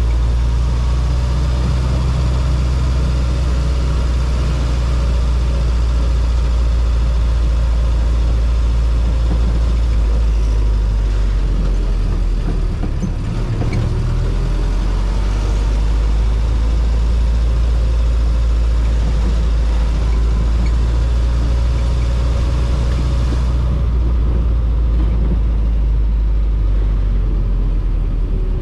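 Jeep CJ-5 engine running as the Jeep is driven, a steady low drone that dips briefly about halfway through.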